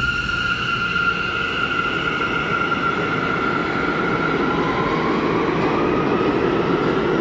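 New York City Subway C train pulling out of the station, its wheels rumbling louder on the track as it goes. Over the rumble, a high motor whine holds steady and sags slightly while a lower whine climbs in pitch from about halfway through as the train gathers speed.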